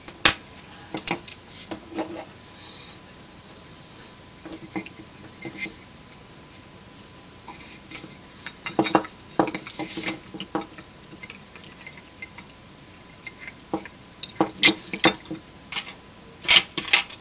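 Scattered clicks and taps of small plastic and metal parts being handled while an opened SJ1000 action camera is worked on, in uneven clusters with the sharpest ones about nine seconds in and near the end.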